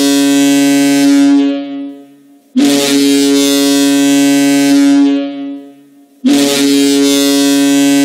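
Providence Bruins arena goal horn sounding long, deep blasts: one already sounding fades out about two seconds in, a second blasts for about three seconds and fades, and a third starts about six seconds in.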